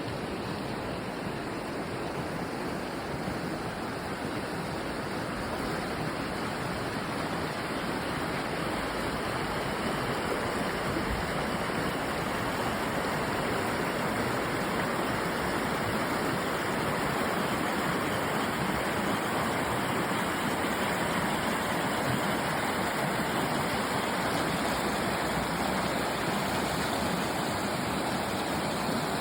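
Water rushing steadily in a stream, an even, unbroken rush.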